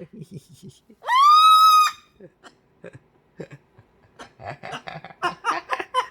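A pet cockatoo gives one loud screech about a second in that rises and then holds steady. Near the end it chatters in a quick run of short syllables.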